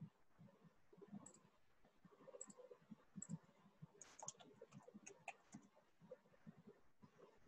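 Faint clicks at a computer: three separate clicks about a second apart, then a quick run of keyboard keystrokes typing a word about four seconds in.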